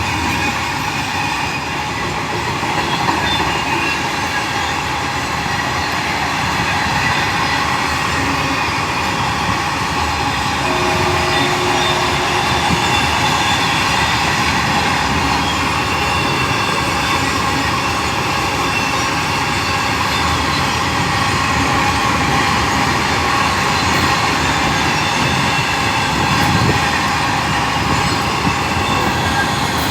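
Goods train running through, its wagons passing steadily over the rails.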